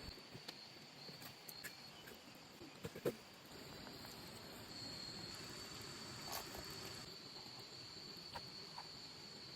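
Crickets or similar insects giving a steady high-pitched trill, with a few sharp clicks and knocks over it, the loudest about three seconds in.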